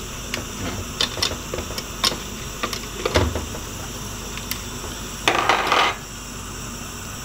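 Metal plate gripper clicking and clattering against a plate as it is set down in a bamboo steamer basket, with a duller knock a little after three seconds. Near the end comes a brief scraping rustle as the woven bamboo lid goes on, over a steady hiss from the pot boiling underneath.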